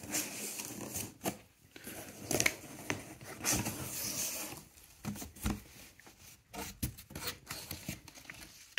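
Cardboard rifle shipping box being opened by hand: uneven bursts of cardboard and paper handling noise with scattered light knocks.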